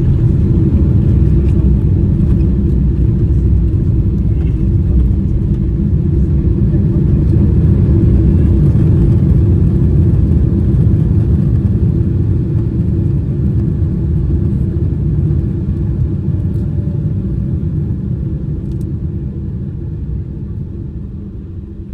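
Airplane landing: a loud, steady low rumble that gradually fades over the second half.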